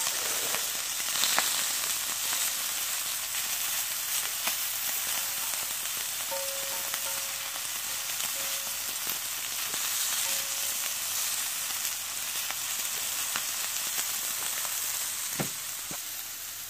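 Pork neck slices and sausages sizzling steadily on a thick, hot griddle over a portable gas stove, with a few sharp clicks of metal tongs turning the meat.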